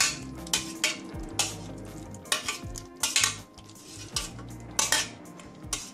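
Metal kitchenware clinking and scraping as chopped peppers and onion are scraped from a stainless steel bowl into a steel cooking pot. It comes as a run of about a dozen sharp, irregular clinks.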